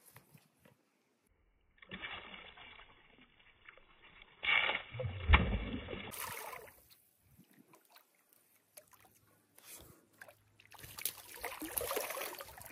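A hooked piabanha splashing and thrashing at the water's surface, loudest about halfway through, with more splashing near the end as the fish is brought to the bank.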